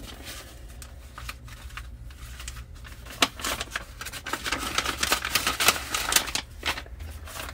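Paper and card rustling and crinkling in the hands as a paper wrapping is unfolded and an envelope handled, with many small ticks and crackles. It is busiest in the second half, with one sharper click a little past the middle.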